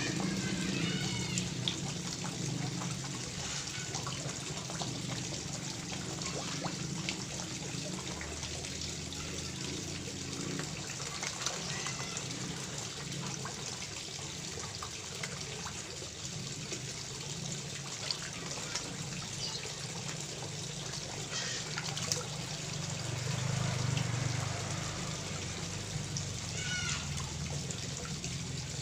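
Water trickling and splashing steadily into a koi pond, with small splashes and a few faint bird chirps.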